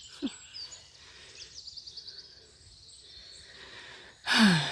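Songbirds singing in woodland, with a rapid high trill of repeated notes about a second and a half in and scattered chirps. A voice starts loudly near the end.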